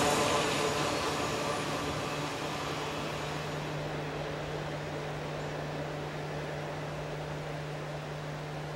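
CSX freight train's rumble fading away as it recedes, with a steady low hum holding underneath.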